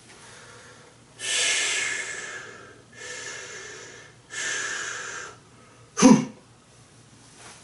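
A man breathing in and out loudly and forcefully, three long hissing breaths, as he braces himself. About six seconds in comes a short, sharp sound that is the loudest of all.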